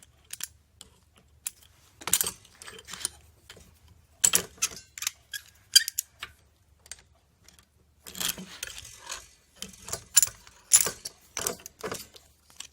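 Small metal hardware clinking and scraping in irregular bursts, as bolts, nuts and lock washers are handled and worked on: short sharp clicks with a few longer rasping stretches, busiest about two seconds in, around four seconds in, and from about eight seconds on.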